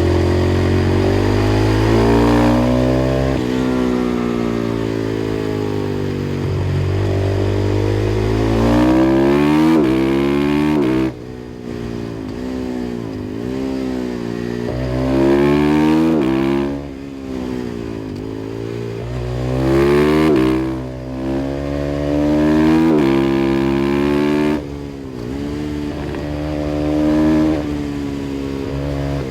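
KTM 500 EXC-F's single-cylinder four-stroke engine through an FMF exhaust, revving up and dropping back again and again as the bike accelerates, shifts and slows. The pitch rises in repeated sweeps, with sudden drops to a quieter off-throttle sound about eleven seconds in and again near the end.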